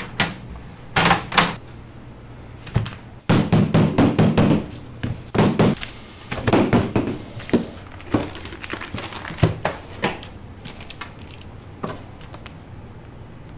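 Bakery kitchen work: a run of knocks, thuds and rustling handling noises, busiest in the first half and sparser later, over a low steady hum.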